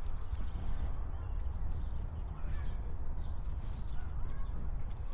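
Walker's footsteps on a park path over a steady low rumble, with a bird calling a couple of times about midway.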